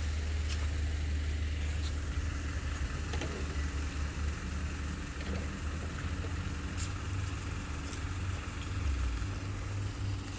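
Box truck engine idling with a steady low rumble.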